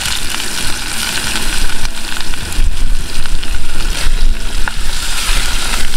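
Onions, dried tomatoes and chillies frying in hot oil in a pan, sizzling steadily with an uneven hiss.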